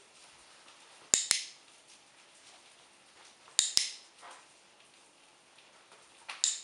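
Dog-training clicker clicked three times, about two and a half seconds apart, each a quick two-part snap as it is pressed and released. Each click marks the moment the dog holds the correct heel position.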